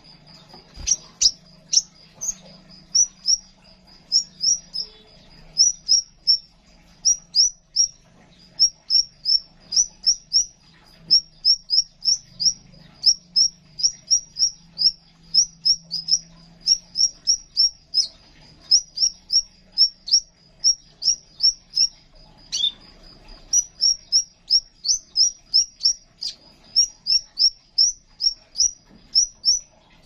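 Male crimson sunbird singing: a long run of sharp, high chirps, about two a second, over a thin steady high trill, with a couple of short pauses.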